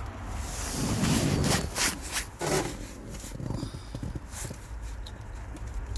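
Hands handling wiring and plastic trim at a car's steering column: rubbing and scraping with several sharp clicks and knocks in the first half, fewer clicks after, over a low steady hum.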